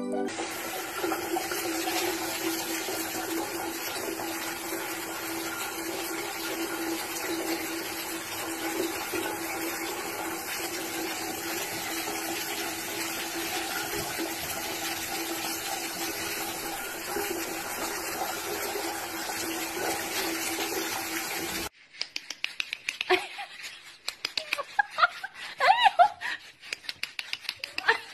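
Shower water running steadily onto a cat in a tiled bathroom. About three-quarters of the way through it cuts off suddenly, and a few short clicks and brief pitched sounds follow.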